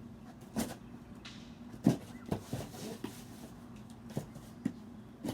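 Cardboard shipping box being opened by hand: a string of separate knocks and short rustles as the flaps and packing are handled, the loudest about two seconds in.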